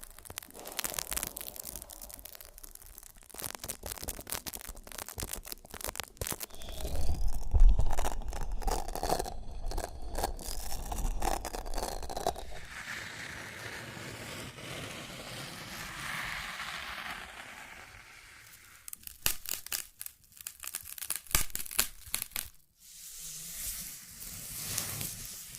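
Close-miked ASMR trigger sounds: runs of sharp scratching and tapping clicks, with stretches of rustling, crinkling noise. The loudest part is a heavier, low, rubbing stretch a third of the way in.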